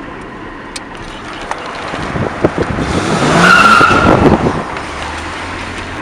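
A car's engine revving up with a rising pitch and a brief tyre squeal, loudest about three and a half seconds in, then dropping back to a steady hum.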